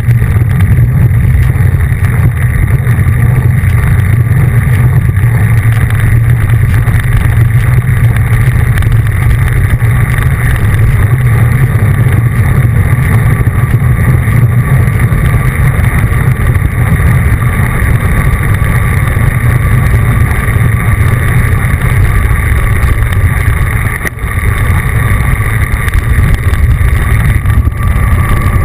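Steady, loud wind rumble on the microphone of an action camera moving along with a group of road cyclists, mixed with road and tyre noise, dipping briefly once near the end.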